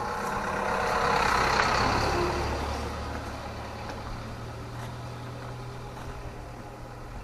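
A motor vehicle goes past. Its engine and road noise swell between one and two seconds in, then slowly fade, leaving a steady low engine hum.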